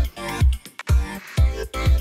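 Music with a heavy, steady bass beat, about two beats a second.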